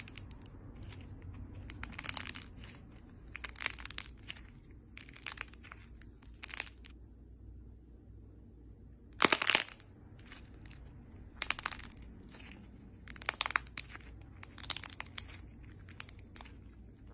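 A dry, crumbly coloured crust being cracked and crumbled apart by hand: a loud crack about nine seconds in, with many short crunching, crumbling bursts before and after it.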